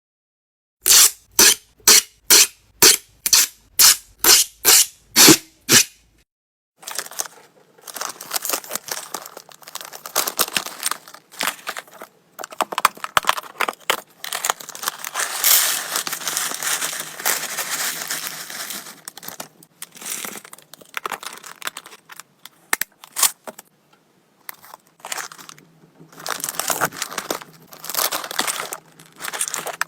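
Packaging being opened by hand. It starts with a quick run of about a dozen evenly spaced scratchy strokes, then gives way to irregular crinkling, crackling and tearing of plastic and paper wrapping.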